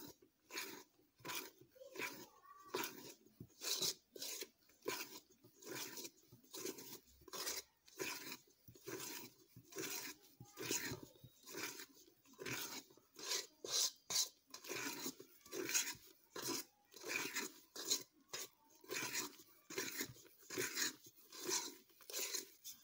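A utensil folding thick cake batter in a stainless steel bowl, scraping and squelching in repeated strokes about one and a half times a second.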